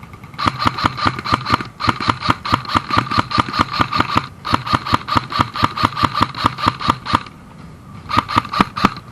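Airsoft electric gun firing on full auto in long bursts of about fifteen shots a second, each shot a sharp mechanical click. Three bursts run almost back to back, then after a pause of about a second another burst fires near the end.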